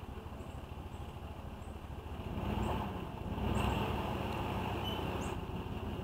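A motor vehicle passing by: a low rumble that swells about two seconds in and again, louder, from about three and a half seconds on.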